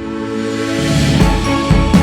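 Background music: held tones, with a steady beat of low drum hits coming back in about a second in.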